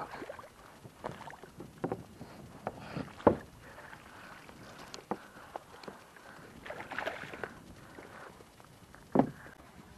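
A hooked peacock bass thrashing at the water's surface beside a kayak: irregular splashes and sharp knocks, the loudest a little over three seconds in and another near nine seconds.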